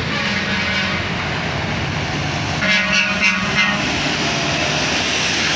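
A bus's telolet horn, a multi-tone air horn, sounding twice over vehicle engine noise: a short, fainter blast at the start and a louder one about two and a half seconds in that lasts about a second.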